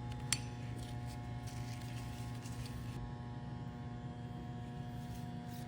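Steady electrical hum in a workshop, with one sharp click about a third of a second in and a few faint ticks.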